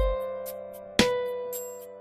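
Instrumental background music: two struck notes or chords about a second apart, each ringing and slowly fading.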